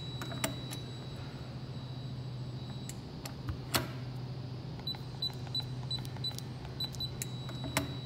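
LaGard Basic electronic safe lock keypad: about five seconds in, six short beeps as a six-digit code is keyed in, then near the end a longer beep from the lock accepting the code. Earlier, a couple of sharp clicks from the safe's handle and mechanism.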